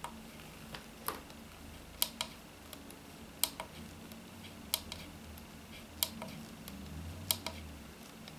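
Push-buttons on a Smart Power gate-control receiver being pressed over and over, each press a sharp click, often a quick press-and-release pair, about one press a second. The A button is being pressed to step through the digits of a new site number.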